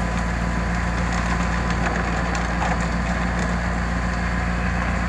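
Komatsu PC200-6 excavator's diesel engine idling steadily, with a constant low hum and a thin faint whine above it.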